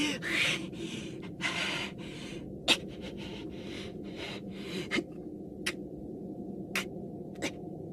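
A man's heavy breaths and gasps as a wounded man comes round, strongest in the first two and a half seconds. After that only a faint steady background remains, with a few short clicks.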